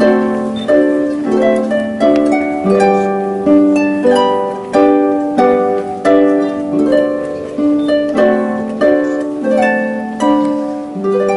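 Solo harp playing: plucked chords and single notes at about two a second, each ringing and dying away, with the last one fading out near the end.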